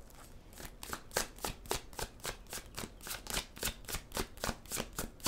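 A deck of tarot cards being shuffled by hand, the cards clicking against each other in a steady patter of about four short clicks a second, starting about half a second in.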